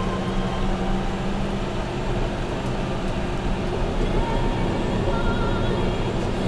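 Caterpillar D8T bulldozer running steadily, with a constant low engine rumble and machinery noise.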